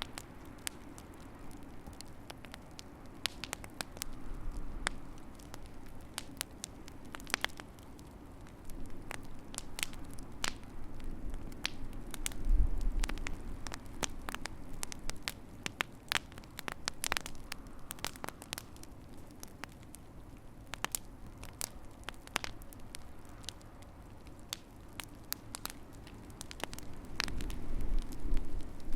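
Wood fire crackling, with irregular sharp pops over a steady soft hiss of flames. A brief low rumble comes about twelve seconds in and again near the end.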